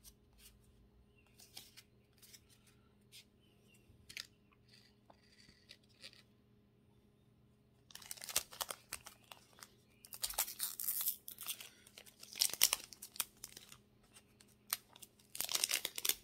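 A foil Pokémon card booster pack wrapper being torn open and crinkled, in several loud bursts over the second half. Before that there are only faint clicks of cards being handled.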